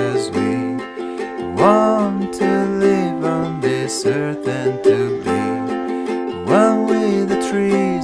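Background music: an acoustic song carried by a plucked string instrument in a steady rhythm, with two sliding notes.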